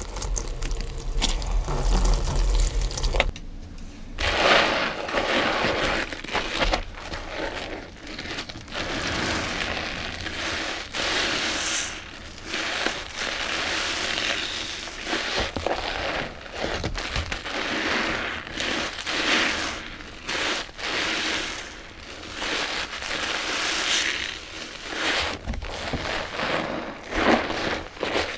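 Wet sponges squeezed over and over in thick shampoo suds: squelching and crackling foam, a squeeze every second or two.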